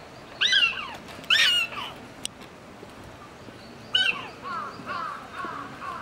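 Animal calls: two loud, harsh calls falling in pitch, about a second apart, and a third about four seconds in, followed by a quick run of short chirps, about three a second.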